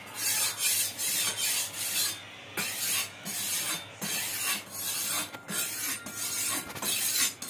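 Repeated rasping, rubbing strokes, about two a second.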